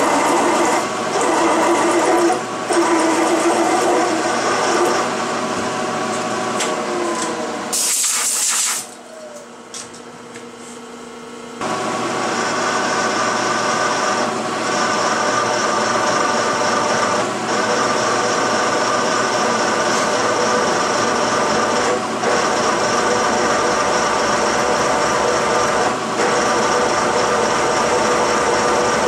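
Large twist drill boring through a metal plate, with a steady whine from the machine and the cut. About eight seconds in there is a short hiss, the sound drops away for a few seconds, and then the drilling resumes.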